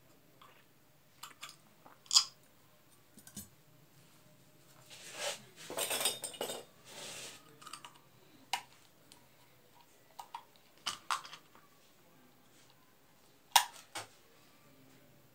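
Small LED bulb parts, the metal housing and white plastic pieces, clicking and clinking as they are handled and fitted together by hand, with a longer scraping rustle in the middle.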